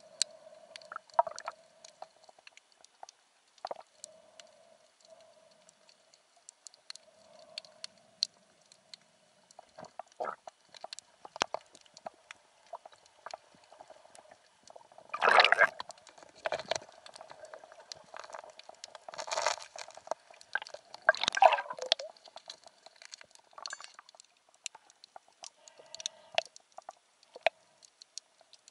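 Underwater sound: a scattered crackle of sharp clicks over a faint steady hum, with three louder rushes of water noise about 15, 19 and 21 seconds in.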